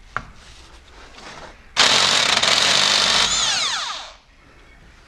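Impact wrench with an 18 mm socket hammering on the crankshaft pulley bolt of a Renault 1.5 dCi engine for about a second and a half, then winding down with a falling whine. The bolt breaks loose.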